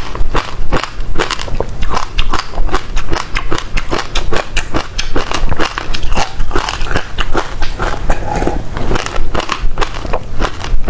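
Close-miked chewing of passion fruit pulp, the seeds crunching in a rapid, continuous run of sharp crackling clicks.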